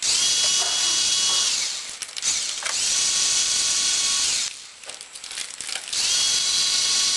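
Cordless electric ratchet spinning off the cylinder-head acorn nuts of a two-stroke dirt-bike engine, in three runs of about two seconds each. The motor whine rises as each run starts and drops away as it stops, and the third run is still going at the end.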